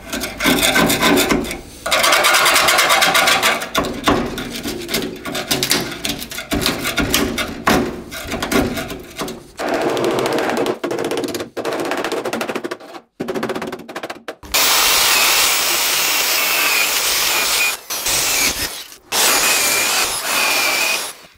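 A screwdriver scrapes rust off the steel of an old truck door in quick, uneven strokes. About two-thirds of the way in, a small power tool takes over and runs steadily with a thin whine, with a few short breaks, cleaning the spot down to bare metal.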